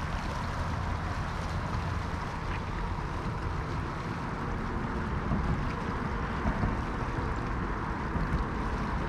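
Wind buffeting the microphone in a steady low rumble, with small waves lapping and splashing against the rocks at the foot of a seawall.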